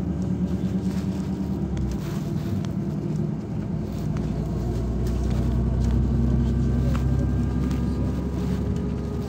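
LiAZ 5292 low-floor city bus driving, heard from inside the passenger cabin: a steady engine and drivetrain hum with low road rumble, the rumble growing a little heavier about two seconds in.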